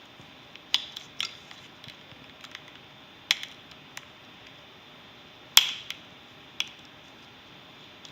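Plastic Lego bricks clicking as they are handled and fitted together: a handful of separate sharp clicks at irregular intervals, the loudest about five and a half seconds in.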